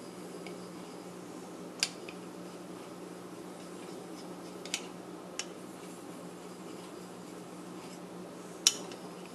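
Straight razor being honed with light strokes on a wet fine-grit synthetic whetstone: faint steel-on-stone strokes broken by a few sharp clicks as the blade meets the stone, the loudest near the end, over a steady low hum.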